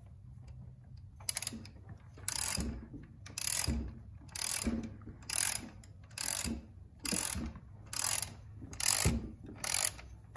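Hand ratchet clicking through about ten strokes, roughly one a second, as it runs down the bolt of a new idler tensioner pulley before the bolt is torqued to spec.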